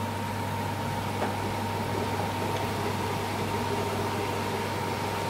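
Potato and red lentil pakoras deep-frying in a pan of hot oil, a steady sizzle with a few faint pops, over a steady electrical hum.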